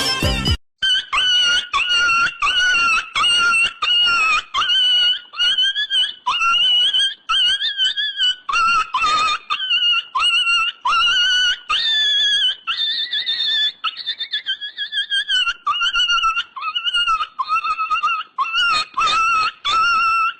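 A short burst of music cuts off about half a second in. After it comes a long run of high-pitched squealing cries, each about half a second long, starting with a quick upward scoop and repeating one to two times a second.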